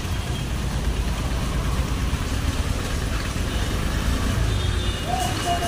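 Slow street traffic: auto-rickshaw and car engines running close by, over a steady hiss of rain and tyres on the wet road.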